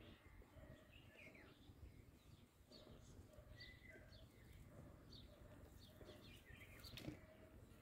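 Near silence with faint small-bird chirps: short high notes repeating about every second.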